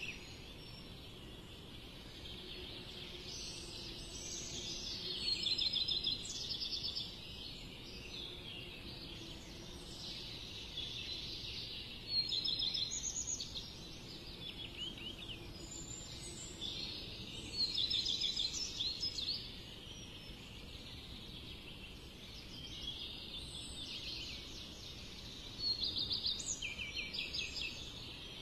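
Birds singing in bouts every few seconds, quick trilled and chirping phrases over a steady low background noise.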